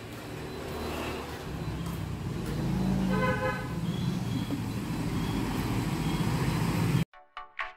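Street traffic with a minibus's engine running as it passes, growing louder, and a short horn toot about three seconds in. Pulsing electronic music cuts in suddenly near the end.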